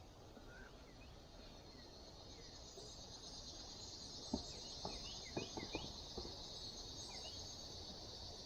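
Steady high-pitched chorus of insects that swells in a couple of seconds in and keeps going, with a few sharp clicks and short chirps in the middle.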